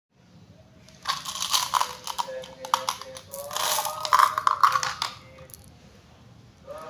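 A handful of glass marbles clattering and clinking together in a hand, in bouts of rattling that stop about five seconds in.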